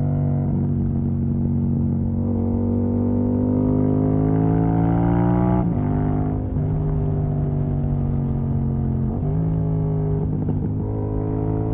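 Yamaha MT-07's parallel-twin engine, running without its exhaust dB-killer baffle, pulling under load. The pitch climbs for a few seconds and breaks abruptly at a gear change about six seconds in, then holds fairly steady, with another short break near nine seconds.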